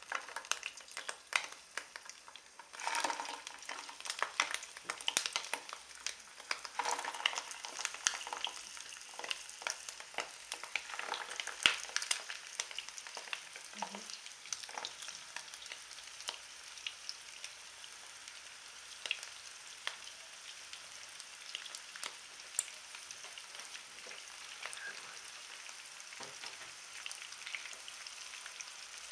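Raw sausages frying in a thin layer of oil in a nonstick pan: a sizzle with frequent sharp crackles and spits while they are being laid in, settling to a steadier, lighter sizzle in the second half.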